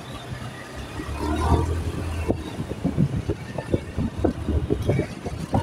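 Road noise from a vehicle riding along a rough roadside lane: a low steady hum, then many irregular low thuds through the second half.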